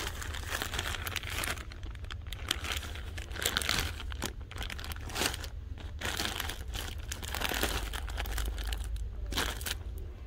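Rustling and crinkling of plastic wrapping as items are handled and turned over, in irregular strokes, over a steady low hum.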